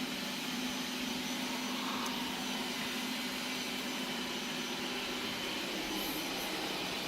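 Qihoo 360 S6 robot vacuum running steadily as it cleans: an even motor and fan whir with a low hum.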